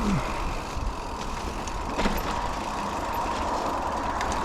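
Wind rumble on a helmet- or bike-mounted action camera and the tyres and frame of a hardtail mountain bike rattling over a rutted dirt trail, with a sharp knock about two seconds in.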